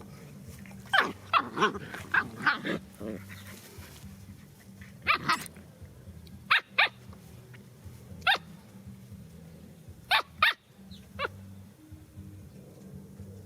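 A dog barking in short, sharp barks, about a dozen of them, in quick bunches of one to five with pauses between. A steady low hum runs underneath.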